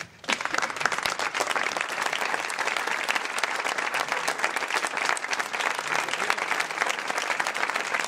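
Audience applauding: dense clapping that breaks out a moment in and holds at an even level.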